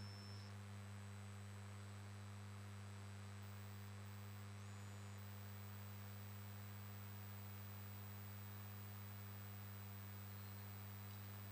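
Very quiet room tone made up mostly of a steady low electrical hum, with faint hiss.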